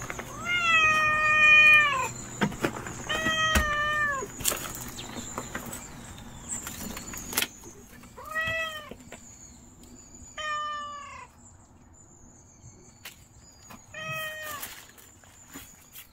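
A cat meowing six times: one long, drawn-out meow near the start, two short ones just after, then three more single meows spaced a few seconds apart.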